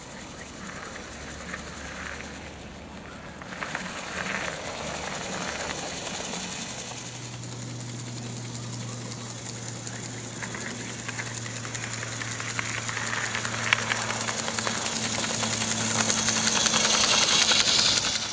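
Model class 47 diesel locomotive running on garden railway track: its electric motor hums steadily and the wheels clatter lightly on the rails. It grows louder as it approaches and passes close by near the end.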